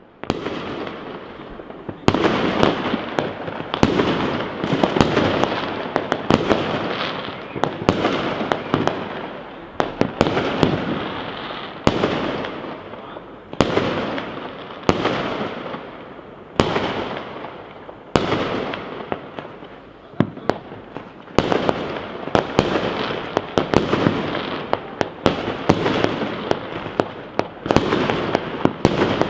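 Aerial firework shells bursting in a continuous display. A sharp bang comes every second or two, and each one trails off into a rumble that fades.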